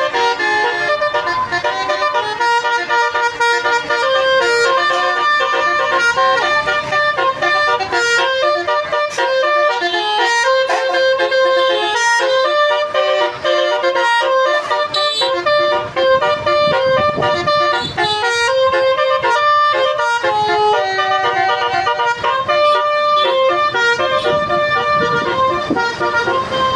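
Indonesian bus 'telolet' multi-tone air horn playing a quick tune, several horn notes sounding at once and switching pitch every fraction of a second without a pause, with a bus engine rumbling underneath in the second half.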